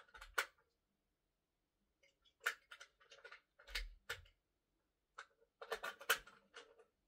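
Faint clicks and light clatter of batteries and hard plastic toy parts being handled, in three short bursts of rapid ticks.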